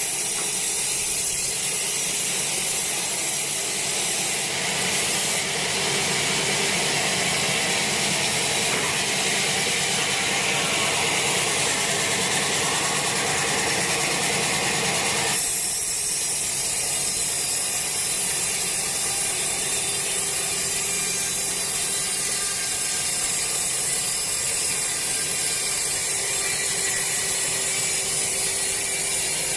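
A sawmill saw running and cutting through a green teak log, a steady dense mechanical noise. About halfway through, its fuller lower part drops away suddenly and a thinner, higher noise goes on.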